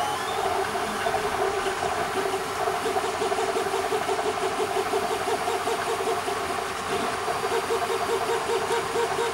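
CTC 3D printer running mid-print: the stepper motors whine in pitched tones that pulse and shift as the head moves, over a steady fan whir.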